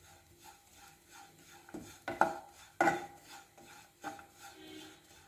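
Wooden spatula stirring and scraping grated coconut, nuts and raisins around a nonstick pan, with a few sharper scrapes around the middle.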